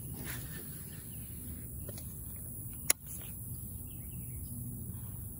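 Outdoor pond-bank ambience: steady low background noise with a few faint bird chirps, broken by a single sharp click about three seconds in.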